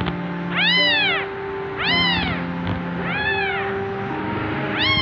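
Very young kitten meowing four times, about every second and a quarter, each cry rising then falling in pitch.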